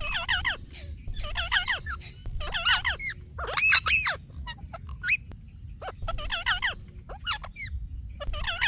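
Indian ringneck parakeet calling in a run of short, harsh, warbling screeches, one burst about every second with a few brief gaps.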